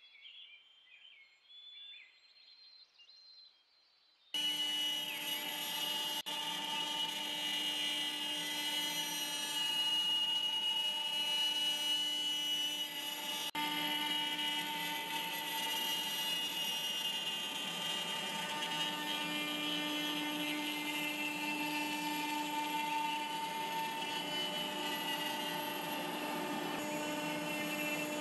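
CNC router spindle running and milling a circular groove into a wooden board: a steady whine over the rasp of the cutting. It starts abruptly about four seconds in.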